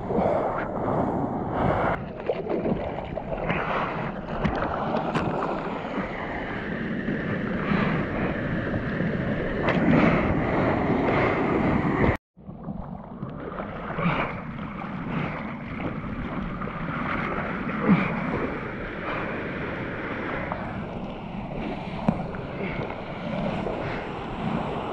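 Ocean surf and whitewater washing and splashing around a surfer's camera, with wind buffeting the microphone. The sound cuts out for an instant about halfway through.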